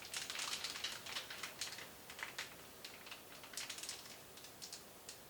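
Plastic bag holding meat crinkling and crackling in irregular clicks as it is handled, busiest in the first couple of seconds and thinning out toward the end.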